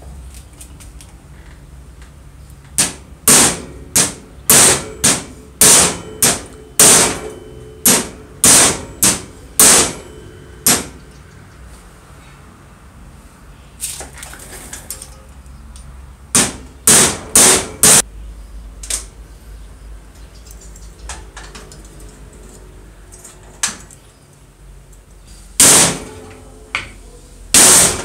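Hammer blows: a fast run of about a dozen sharp strikes, roughly two a second, then a short burst of four, then a few more near the end. They are knocking the circular saw motor's armature shaft out of its ball bearing.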